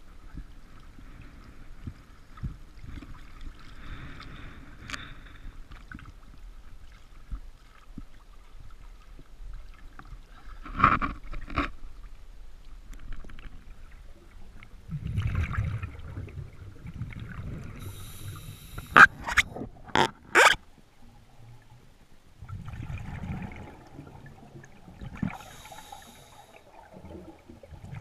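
Water sloshing around the camera at the surface, then underwater sounds of a scuba dive: bursts of exhaled bubbles from the diver's regulator, with a few sharp knocks about two-thirds of the way through.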